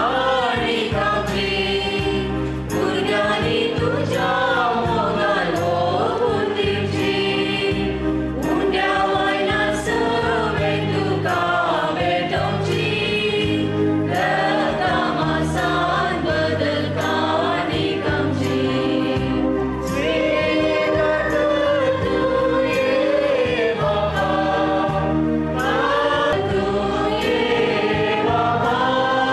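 A choir singing a Christian hymn with low instrumental accompaniment, starting suddenly out of silence.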